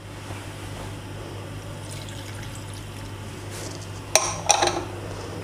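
Lemon juice poured from a small bowl onto diced potatoes, onions and tomatoes in a plastic mixing bowl: a faint liquid trickle over a steady low hum, with a couple of sharp knocks about four seconds in.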